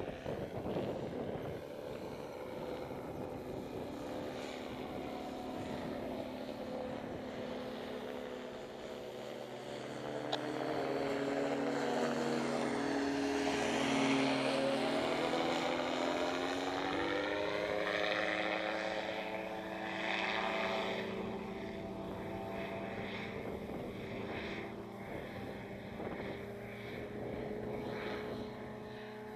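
A propeller aircraft's engine droning as it passes overhead, swelling to its loudest about halfway through and then fading slowly.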